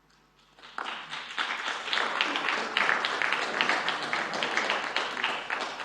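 Audience applause that breaks out about half a second in: many hands clapping at once.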